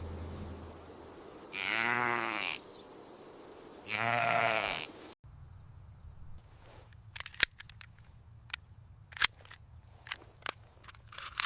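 A sheep bleating twice, each a wavering call about a second long, followed by a quieter stretch of scattered faint clicks over a thin steady high tone.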